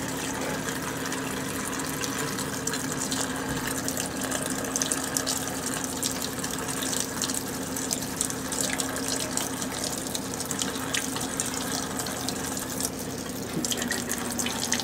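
Kitchen faucet running steadily, its stream splashing into an aluminium beer can held under it and into the sink as the can is filled with water.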